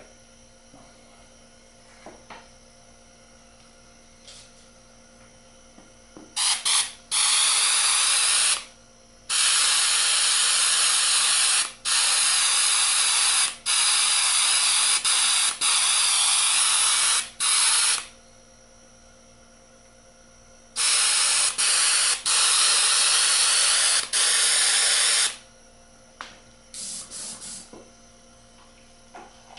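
Airbrush spraying white paint through a homemade screen nozzle cap, fed at 60 psi: loud bursts of hiss as the trigger is pressed and released, one long spell broken by brief gaps, then a second of about four seconds, then a few short puffs near the end. A faint steady hum runs underneath.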